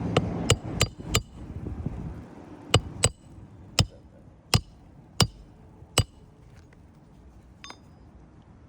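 Hammer striking a roofing nail on an asphalt-shingle roof, each blow with a short metallic ring, while the nail is beaten out of the old shingles. About four quick blows come first, then about six slower ones spaced roughly three-quarters of a second apart, and a last fainter one near the end.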